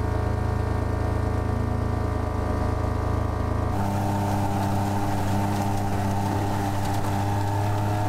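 A John Deere Gator utility vehicle's engine running steadily just after being jump-started on a nearly flat battery. About halfway through it changes abruptly to the Gator's engine under way, driving fast across a field.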